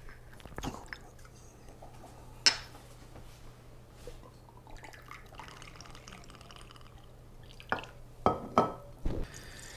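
Rye whiskey poured from a glass bottle into a small glass measure: a sharp glass clink about two and a half seconds in, a faint trickle of liquid in the middle, and several knocks of glass set down on the stone countertop near the end.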